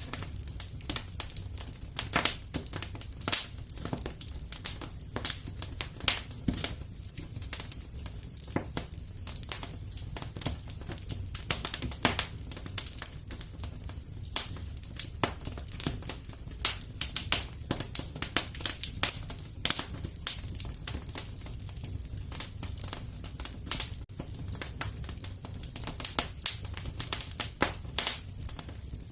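Fireplace fire crackling: irregular sharp pops and snaps, several a second, over a steady low rumble of the burning.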